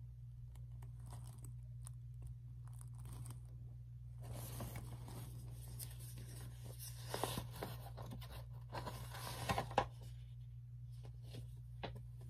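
Faint, irregular rustling and scraping of a paperback storybook's pages being handled between pages, in a few clusters with two sharper scuffs toward the middle, over a steady low hum.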